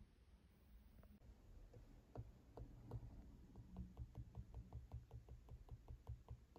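Faint room tone, then from about two seconds in a run of quick, light fingertip taps on an iPad's glass touchscreen, about four or five a second.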